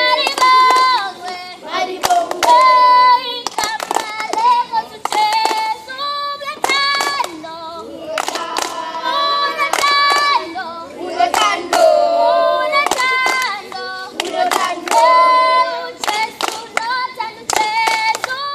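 A group of children singing together unaccompanied, clapping their hands in time with the song.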